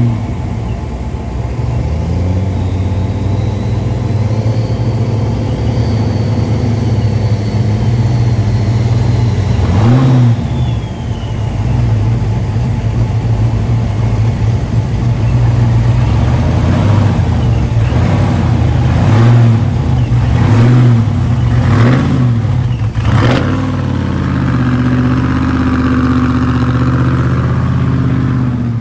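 Lifted GMC Sierra 3500 mega truck's 365-cubic-inch V8 running as the truck rolls slowly, blipped hard once about a third of the way in, then revved in a quick run of four or five blips in the second half.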